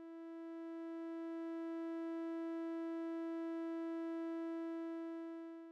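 Music: a single held note at a fixed pitch, rich in overtones, swelling in slowly, holding steady and fading out near the end.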